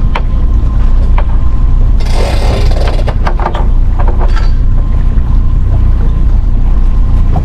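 Outboard motor running in gear with a steady low rumble, holding the boat up on the trailer bunks. Over it come sharp metal clicks and, about two seconds in, a second-long scraping rattle as the winch hook and strap are handled at the bow.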